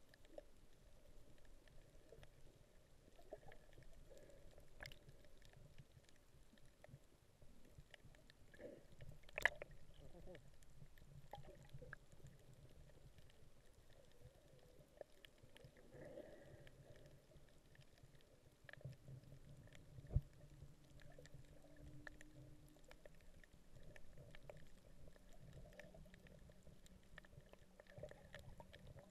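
Near silence underwater: a faint, muffled low rumble with scattered soft clicks, and two sharper clicks about nine and twenty seconds in.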